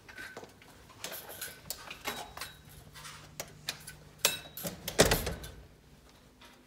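A door with a metal lever handle being worked by hand: a string of clicks, clinks and rattles, with a louder thump about five seconds in.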